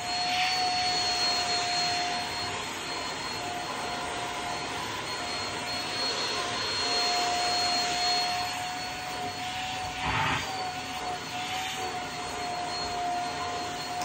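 Shark Rocket Pet corded vacuum running as a handheld unit with its crevice tool, sucking cat fur off fabric upholstery. The motor gives a steady high whine over a rush of air, with a brief louder rush of suction about ten seconds in.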